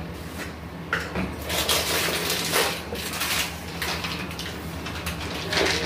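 Steel kitchen containers, lids and utensils clinking and clattering as they are picked up and set down, in several separate knocks, over a steady low hum.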